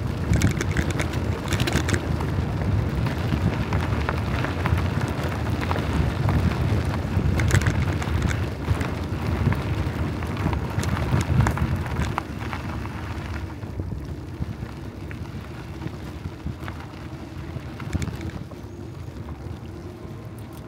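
Wind rumbling on the microphone while cycling, with scattered clicks and rattles. It eases and gets quieter about two-thirds of the way through.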